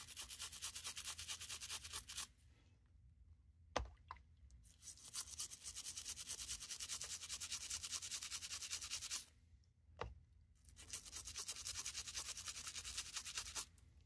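Toothbrush bristles scrubbing a wet, soapy Swiss Army knife, in three bouts of quick back-and-forth strokes with short pauses between them. A single sharp click falls in each of the two pauses.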